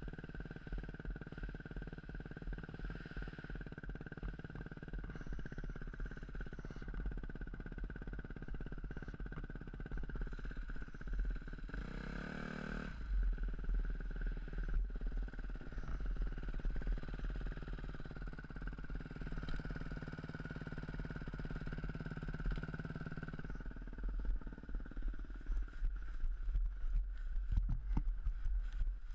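Yamaha off-road motorcycle engine running steadily at low revs, with a brief rev about twelve seconds in that falls away again. Near the end the steady engine note gives way to knocks and rattles.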